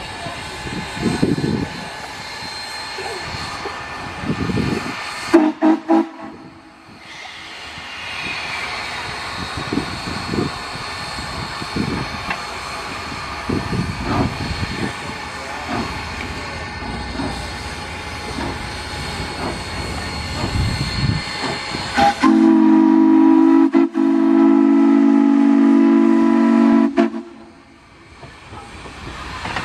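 Moving train: running rumble and hiss with repeated knocks from the wheels. A locomotive gives a short blast about five seconds in, then a loud, steady chord-like blast of about five seconds about 22 seconds in.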